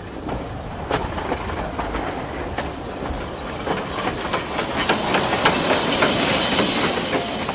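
Cogwheel steam train passing close by: the carriage wheels click and knock over the track, then the steam rack locomotive goes past about four seconds in, bringing a loud hiss of steam.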